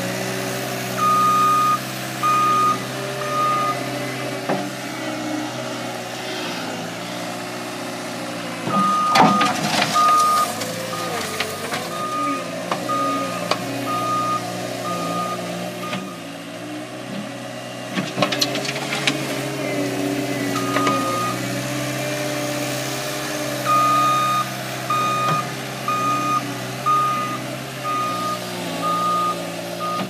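Cat 262C skid steer's diesel engine working under load, its pitch rising and falling as it pushes and backs up. Its backup alarm beeps about once a second in several runs while it reverses. Two loud bursts of clatter come around nine and eighteen seconds in.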